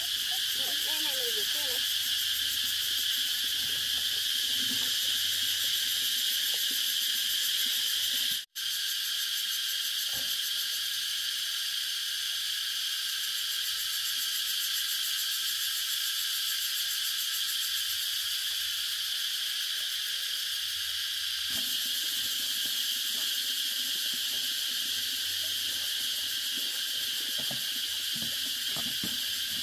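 Steady chorus of insects droning without a break, cutting out for an instant about eight seconds in.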